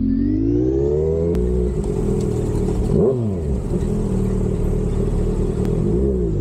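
Kawasaki Z1000's inline-four engine revving hard through a full titanium exhaust. The pitch climbs over the first second or so, then holds high with two brief dips and recoveries, about three and six seconds in.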